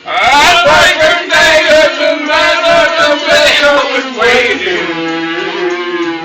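A man singing loudly in long, wavering held notes over a music track with a steady beat. The singing starts abruptly and ends on a long, lower held note.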